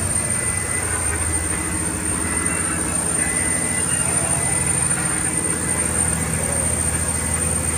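Fishing boat's engine running steadily under way, a low even drone with a fast regular pulse.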